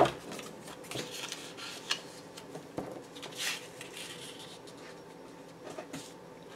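Paper journaling cards being slid and shifted by hand over cardstock: soft rustling and scraping in short strokes with a few light taps, after a sharp knock right at the start.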